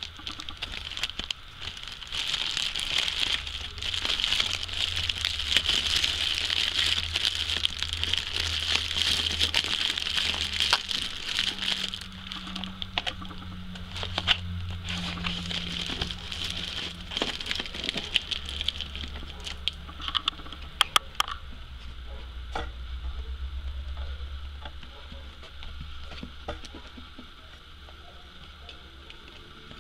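Bubble wrap and foam packing peanuts crinkling as they are pressed down into a plastic storage box, then the box's plastic lid being fitted on, with a few sharp clicks about two thirds of the way through.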